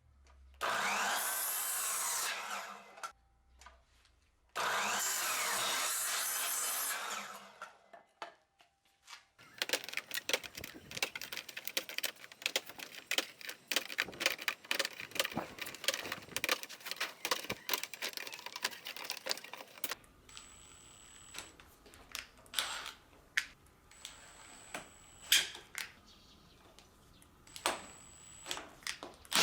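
Wood being cut by a power saw in two runs of about two and a half seconds each. Then comes about ten seconds of rapid scraping and rubbing on wood, and a few scattered knocks near the end.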